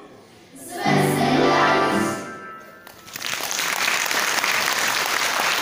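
A song's final chord rings briefly about a second in, then audience applause breaks out about three seconds in and keeps going.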